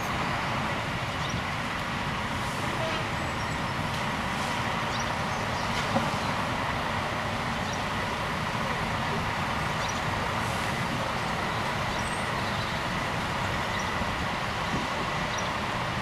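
Diesel engines of heavy truck tractor units, a Volvo FH500 and Scanias, running steadily as the trucks drive slowly past one after another. One short sharp click comes about six seconds in.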